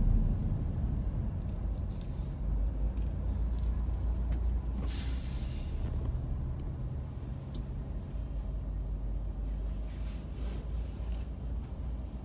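Steady low rumble of a car idling at a standstill, heard from inside the cabin along with surrounding traffic. A brief hiss comes about five seconds in.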